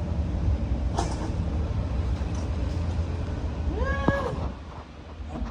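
A pet's single short whining call about four seconds in, rising then falling in pitch, over a steady low rumble; a click sounds about a second in.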